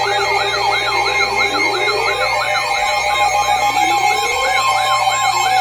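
Electronic alert alarm of layered tones: a fast siren-like yelp sweeping up and down about three times a second over steady tones, with a slower rising wail about every two seconds. It sounds between an emergency alert header and a severe thunderstorm warning message.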